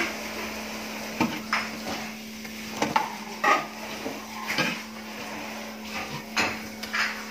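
Knocks and clatter of kitchenware and plastic containers on a metal shelf rack as a toddler grabs and shakes them, several separate knocks with short ringing.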